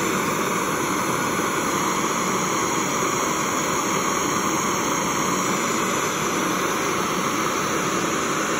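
Handheld brass gas blowtorch burning, its blue flame giving a steady, even hiss.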